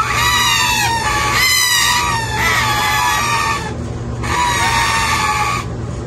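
Indian ringneck parakeet chick giving loud, harsh begging calls again and again while being hand-fed, each call a drawn-out note that dips slightly in pitch, with two short pauses near the middle and the end.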